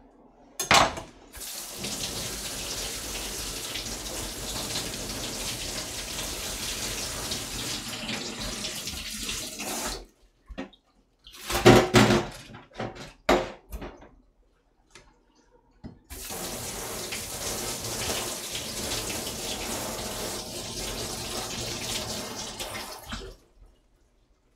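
Kitchen tap running into a stainless steel sink while a vegetable is rinsed: a sharp knock about a second in, water running steadily for about eight seconds, then a few loud knocks and clatters in the sink, then the tap running again for about seven seconds before it is turned off sharply.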